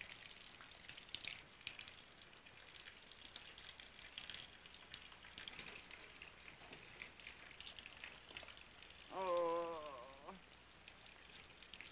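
Faint steady crackle and hiss with scattered ticks, the worn noise floor of an old TV soundtrack. About nine seconds in, a short wavering pitched sound lasts about a second.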